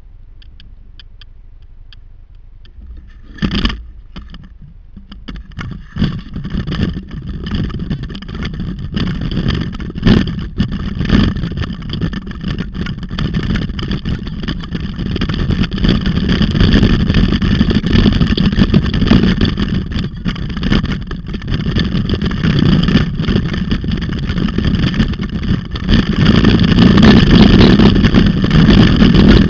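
Wind rushing over the microphone, with tyres and frame rattling on a dirt road, as a dog-pulled bike gets moving and picks up speed. It grows louder toward the end, with a single knock about three and a half seconds in.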